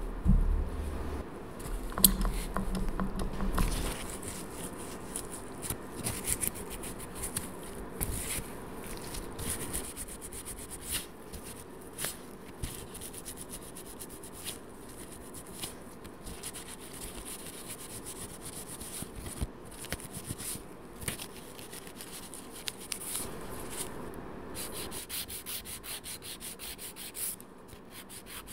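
A few knocks and handling sounds from a pump bottle of nail cleanser in the first few seconds. Then a paper towel rubs and scratches over the fingernails as they are wiped clean. Near the end come quick, even strokes of a 180-grit nail file shaping a builder-gel nail extension.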